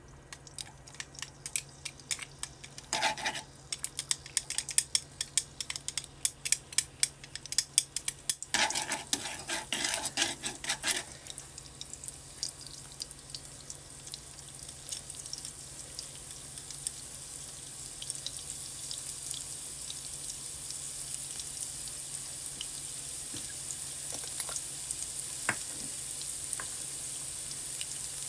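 Chopped onion sizzling as it hits hot oil in a nonstick wok. For the first ten seconds or so there are quick clicks and scrapes of wooden chopsticks pushing it off a dish and stirring it. After that comes a steady sizzle that grows gradually louder as the oil heats.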